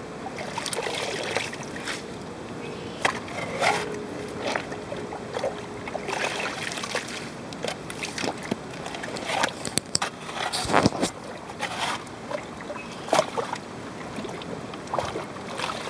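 A shovel digging in a muddy, water-filled hole: irregular scrapes and knocks of the blade in wet soil, with sloshing of the muddy water. The loudest stroke comes about eleven seconds in.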